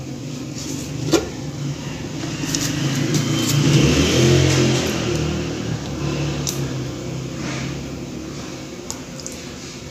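A motor vehicle's engine humming, growing louder to a peak about four seconds in and then fading away. A single sharp click about a second in.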